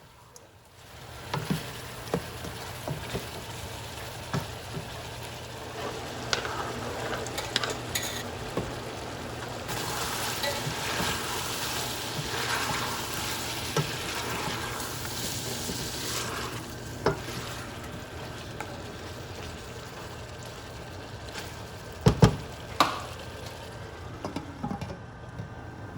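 Chicken frying in hot oil in a pan, a steady sizzle that swells in the middle, with a spoon stirring and clicking against the pan. A few louder knocks of the spoon on the pan come near the end.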